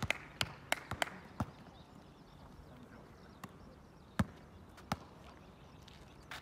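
Basketball bouncing on an asphalt court: a quick run of bounces in the first second and a half, then single bounces spaced about a second apart.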